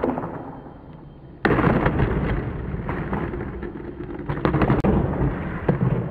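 Skateboard wheels rumbling on rough asphalt, with several sharp clacks of boards striking the ground. The rumble comes in suddenly about a second and a half in.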